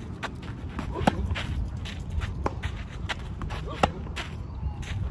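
Tennis ball struck by rackets in a baseline rally: three sharp hits about a second and a half apart, the loudest about a second in and again near four seconds in. Between them, footsteps scuffing and sliding on the clay court.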